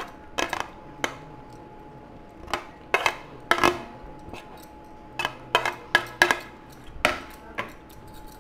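A metal spoon clinking and scraping against a plate and a glass bowl in irregular knocks, as grated raw mango, green chillies and garlic are pushed off the plate into the bowl.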